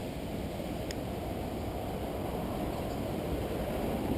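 Steady, dull low rush of flowing creek water, with faint clicks about a second in and again near the end.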